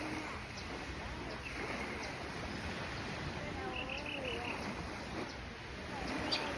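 Outdoor morning ambience: a steady rushing background with scattered animal calls, including a quick run of about five chirps a little past the middle.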